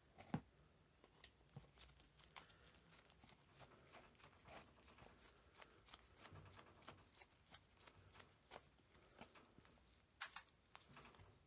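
Faint clicks and ticks of a screw being turned with a screwdriver into a plastic strimmer throttle handle, with a sharper knock about half a second in and a short run of clicks near the end.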